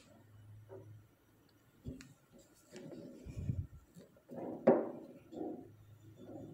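Kitchen handling sounds: a few knocks and clinks of a ceramic bowl and utensils being moved about, the sharpest clink with a short ring about two-thirds of the way through.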